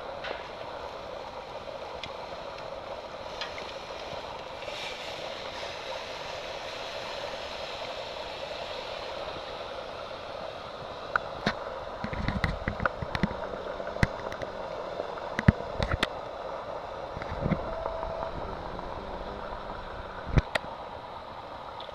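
Steak sizzling on a gas grill over its infrared searing burner, a steady hiss. About halfway through, a scattered run of sharp metallic clicks and clanks starts, from tongs knocking on the grill grates.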